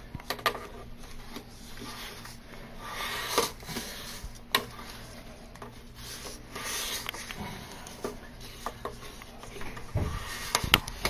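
Peel-and-stick edge band strip pulled firmly across an edge again and again: a series of separate rubbing swishes with a few light clicks and taps, as the curl is worked out of the band.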